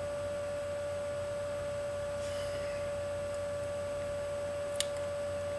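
Steady electrical tone and low hum, with a single short click about five seconds in.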